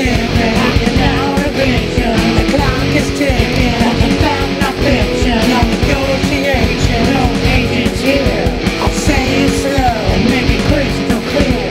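Guitar-driven rock music with a steady beat.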